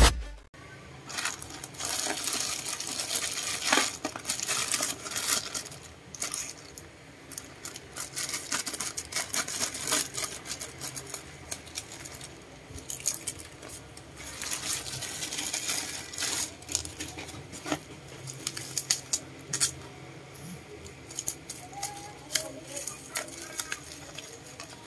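Plastic packaging being handled and opened: a thin plastic shipping bag rustling and crinkling as it is cut open with scissors, then bubble wrap crinkling in the hands. Many irregular crackles and rustles.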